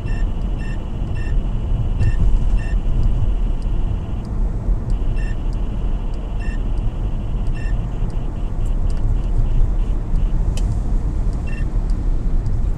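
Two radar detectors, a Bel STi-R Plus and a Valentine One, sounding Ka-band alerts to a Stalker II handheld police radar. Spaced short beeps run over a continuous warbling alert tone that breaks off about four seconds in and returns. Then come quicker chirps about four a second, ending with a single beep near the end, over the car's steady road rumble.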